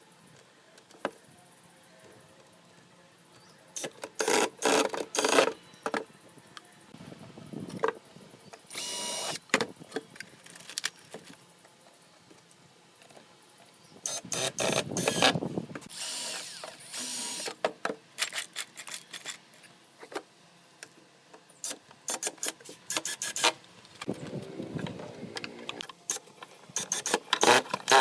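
Workshop sounds in short spells: a power drill running in brief bursts of a second or two, with knocks and clicks of wood being handled between them.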